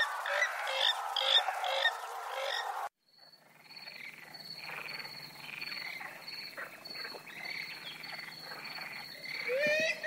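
Purple swamphen calls: a dense run of repeated calls that cuts off abruptly about three seconds in, then a quieter stretch with scattered calls over a steady, high-pitched pulsing tone, and a rising call near the end.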